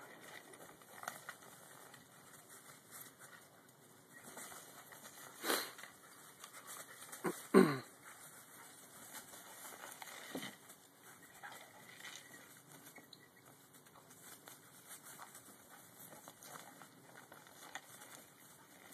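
Faint, irregular crackling rustle of dry fallen leaves under two playing dogs' paws. One brief loud sound that drops in pitch comes about seven and a half seconds in.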